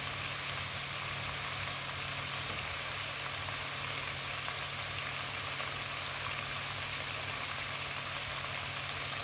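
Meat and chicken-gizzard adobo sizzling steadily in a pot on a gas burner as it cooks down dry, a constant crackling hiss. A low steady hum runs underneath.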